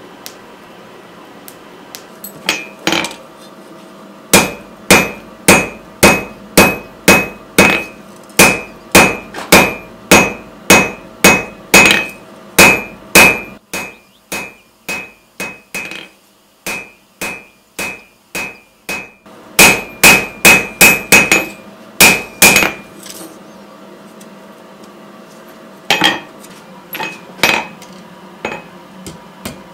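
Blacksmith's hand hammer striking hot steel bar on an anvil, about two blows a second, each with a bright metallic ring. The blows grow softer for several seconds in the middle, come back hard, stop for a few seconds, and return as a few scattered blows near the end.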